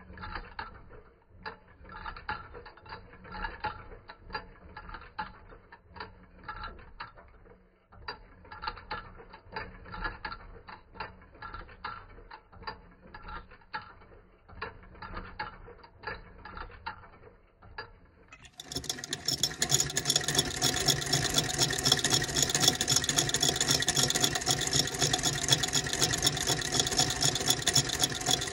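Will C. Free sewing machine's rotoscillo shuttle driver and under-bed shafts running, filmed from below. At slowed-down speed they give a soft, regular clicking and ticking, then about two-thirds of the way in they switch to normal speed and a much louder, fast, steady mechanical clatter.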